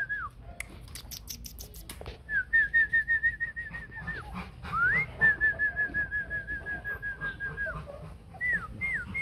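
A person whistling to call Rottweiler puppies: two quick runs of short, even notes at about five a second, then several short rising whistles near the end. A brief run of sharp clicks comes about a second in.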